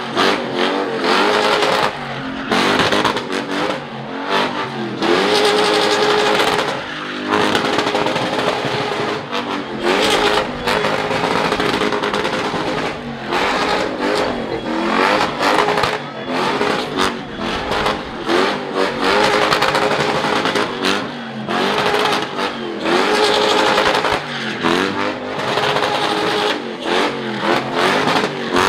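A rear-wheel-drive car doing burnouts and donuts: the engine is revved hard again and again, its pitch rising and falling, over the hiss and squeal of spinning tyres.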